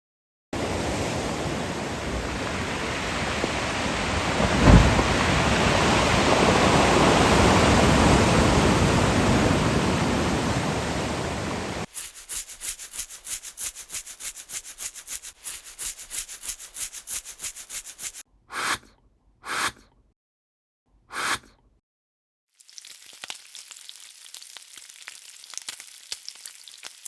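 A series of separate sound effects: a dense rushing noise like heavy rain for about eleven seconds with one low thud partway through, then fast regular ticking, three short bursts, and a faint crackling near the end.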